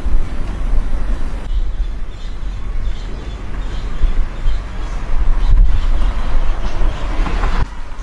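Wind buffeting the microphone outdoors: a heavy, uneven low rumble over a noisy background hiss, which changes abruptly about a second and a half in and again near the end.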